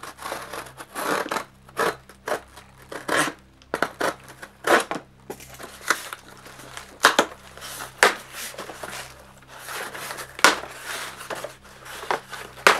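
Scissors slitting the packing tape on a cardboard shipping box, and the cardboard scraping and rustling as the box is pulled open. The sound is a run of irregular scrapes and snips, with a few sharper, louder strokes.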